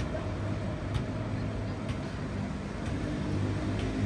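City street traffic: a steady road-noise hum with a motor vehicle's low engine drone growing louder toward the end, and faint ticks about once a second.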